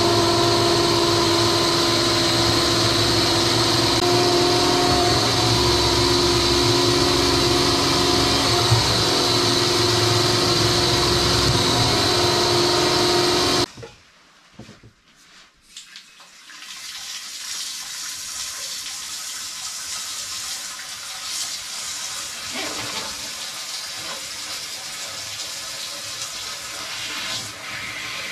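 Drain-clearing equipment running steadily with water rushing through it, held tones over a loud hiss, cutting off abruptly about halfway through; after a brief lull a softer steady rush of water runs on.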